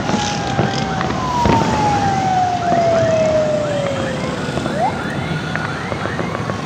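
Fireworks going off: a few sharp bangs among many short rising whistles. A long tone falls slowly in pitch over about three seconds, and another starts near the end.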